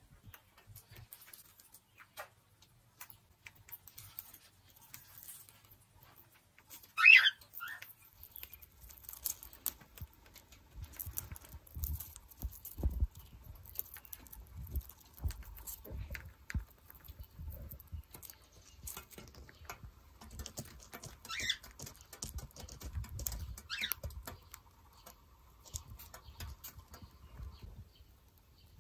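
Cockatiel biting and chewing bamboo leaves with its beak: many small clicks, crunches and leaf rustles in an irregular patter. A single short, loud chirp about seven seconds in, and two fainter calls later.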